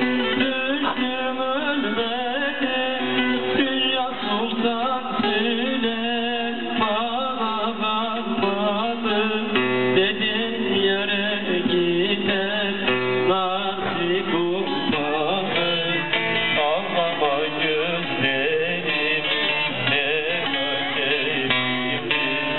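A Turkish folk song (türkü): a man singing while playing a plucked bağlama (long-necked saz).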